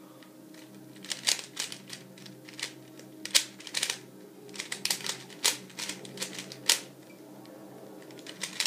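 DaYan GuHong 3x3 speed cube being turned fast by hand: its plastic layers clack in quick, irregular runs of turns, with short lulls near the start and about seven seconds in.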